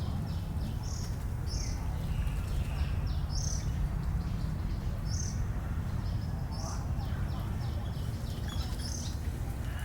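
Birds chirping: short high calls about once a second, with runs of quick notes in between, over a steady low rumble.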